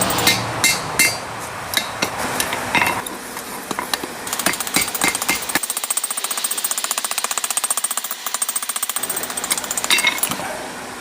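Hammer striking a hot steel railroad spike on an anvil, a run of sharp metallic blows, while the second ram's-head horn is split and drawn away from the head. From about halfway in, a fast, even pulsing carries on under the strikes.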